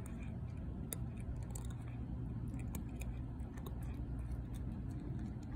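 Cat eating dry kibble: irregular small crisp crunches as it chews, over a steady low background rumble.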